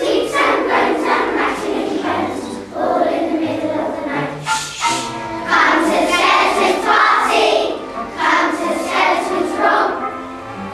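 A choir of young children singing a song together, with a quiet accompaniment underneath.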